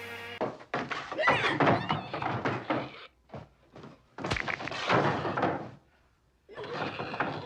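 Knocks and thuds in several bursts separated by brief silences, the loudest a sharp thud about four seconds in.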